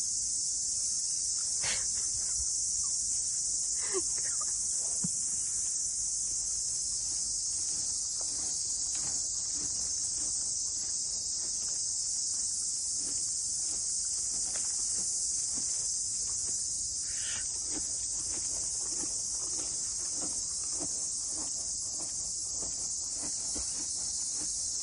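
Insect chorus giving a steady, high-pitched chirring drone, with faint scattered clicks beneath it.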